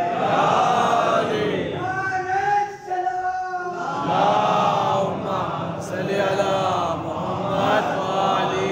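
Men's voices chanting together in a drawn-out, sung recitation with several held notes, breaking off briefly about three and a half seconds in before carrying on.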